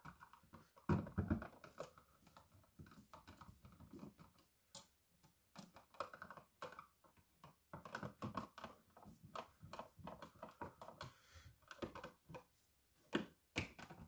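Faint, irregular small clicks, taps and scrapes of an electrical outlet and its wires being worked back into a wall box by hand and with a screwdriver as its mounting screw is started, with a couple of louder knocks about a second in and near the end.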